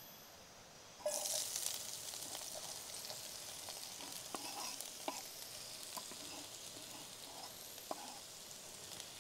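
Food in a hot oiled pan starts sizzling suddenly about a second in, as ingredients go in, and keeps sizzling steadily while being stirred, with scattered clicks of a utensil against the pan.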